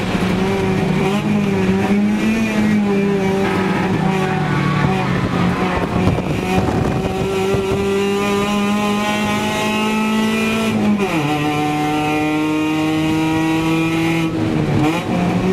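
Race car's engine heard from inside the cabin, held at high revs with its pitch slowly climbing and dipping. About eleven seconds in the revs drop sharply, then climb steadily again, with another brief dip near the end.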